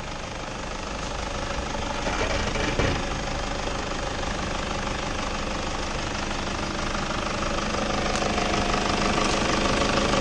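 Mitsubishi Triton pickup's diesel engine running steadily at low revs as the 4x4 crawls over a rutted dirt trail, with a sharp knock about three seconds in. The engine grows louder toward the end as the truck nears.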